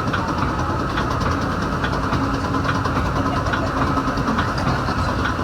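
Metra commuter train running at speed, heard from on board: a steady rumble of wheels on rail with scattered sharp clicks and knocks.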